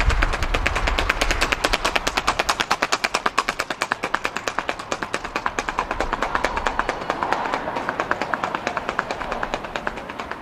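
Horse's hooves striking asphalt in the andadura, a four-beat ambling gait: a rapid, even run of hoofbeats that gets fainter near the end as the horse moves away.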